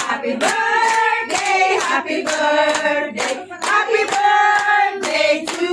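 A group of people singing together, holding long notes, while clapping along in time at about two to three claps a second.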